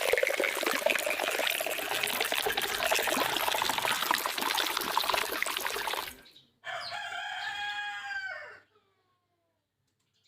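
About six seconds of dense rushing noise, then a rooster crowing once for about two seconds, the call dropping in pitch at its end.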